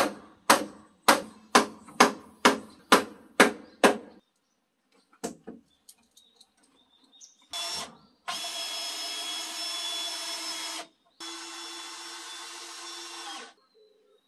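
A hammer striking a nail into timber, about two blows a second, stopping about four seconds in. Then a cordless drill runs in a short burst and two steady stretches of a couple of seconds each, driving into wood.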